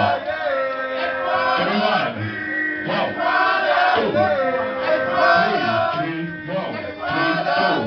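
Loud music with a male voice singing or chanting over a steady beat, with crowd noise.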